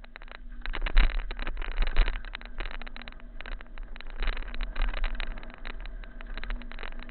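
Mountain bike riding down a rough dirt trail: tyres rolling over dirt and rocks, with many sharp knocks and rattles from the bike over bumps and a steady low wind rumble on the microphone.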